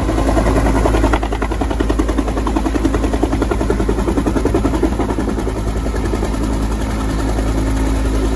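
Turbine helicopter running, a steady engine hum under a fast, even beat of the rotor blades.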